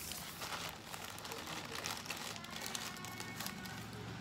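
Clear plastic bag of kerupuk crackers crinkling and rustling as a hand reaches in and pulls crackers out, with many small sharp crackles.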